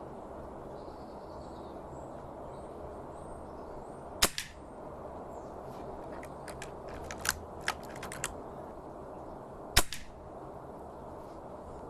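Two sharp air rifle shots about five and a half seconds apart, with a quick run of lighter mechanical clicks between them.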